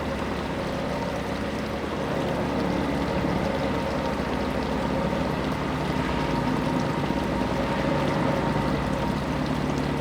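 Steady rushing of flowing river water, unbroken throughout, with a faint steady hum underneath.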